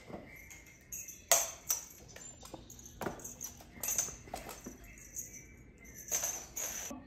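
A cat pouncing and batting at a feathered wand toy on a hard floor: a handful of short, sudden rustling and scuffling bursts, the loudest about a second in and more around three, four and six seconds.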